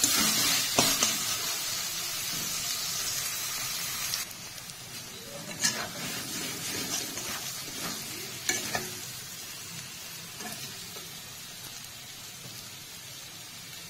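Snails and spice paste sizzling in hot oil in a kadai as they are stirred with a wooden spatula, the masala being fried down with the snails. The spatula scrapes the pan a few times. The sizzle is louder for the first four seconds or so, then settles lower.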